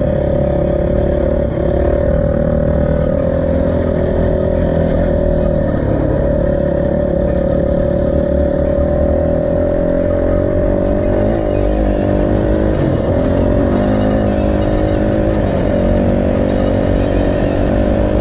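Motorcycle engine running steadily under way, its pitch wavering a little around the middle.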